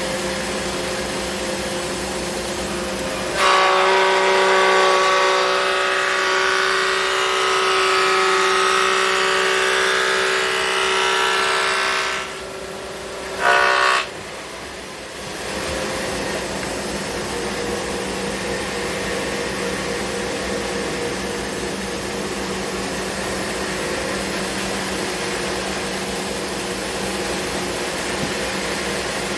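Thickness planer running steadily. About three seconds in, a wide board feeds through and the cut gets louder with a ringing whine for around nine seconds; after a brief dip there is a second short loud burst, then the planer settles back to running empty.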